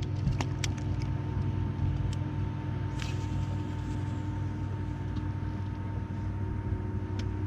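Boat motor running steadily with a low hum, and a few light clicks in the first second.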